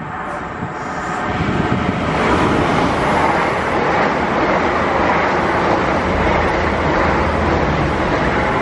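LNER high-speed express train running through the station at speed without stopping. The rush of wheels on rail and air builds over the first two seconds, then holds loud and steady as the coaches pass close by.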